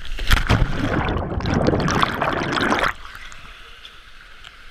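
Loud splashing and churning water with a few sharp hits at the start, cutting off abruptly about three seconds in.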